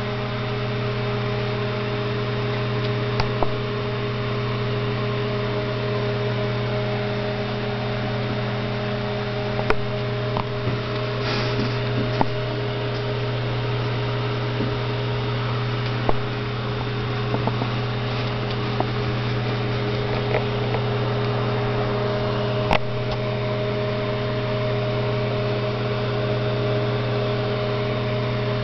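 A steady low hum, like a motor or appliance running, unchanging throughout, with a few light clicks scattered through it.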